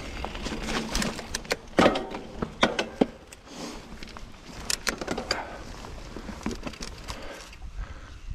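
Mountain bike rolling over a dirt singletrack strewn with dry leaves: the bike clatters and knocks over bumps, with a string of sharp rattles in the first five seconds, then it runs more quietly.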